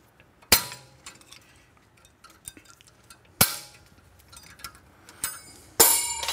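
Three sharp metallic clicks of a hand tool and parts at a car's rear brake caliper being taken apart, the last one ringing briefly.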